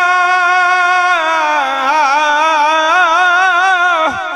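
A solo man's voice singing a Punjabi devotional verse, holding one long vowel: level for about a second, then wavering up and down in a sung ornament before it tails off near the end.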